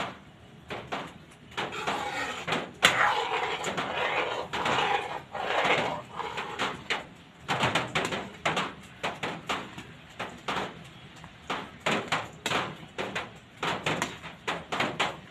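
Ladle stirring a thick, creamy carbonara sauce in a metal pot, knocking and scraping against the pot in quick, regular strokes; the sauce is kept on a low flame so the milk does not curdle, not yet boiling.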